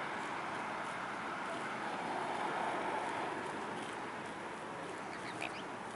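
Steady outdoor background rush, swelling slightly a couple of seconds in, with a brief faint high sound near the end.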